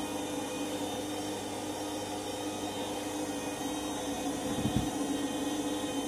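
Candy front-loading washing machine spinning a sudsy load: a steady motor whine over the swish of the drum, with one brief low thud about three-quarters of the way in.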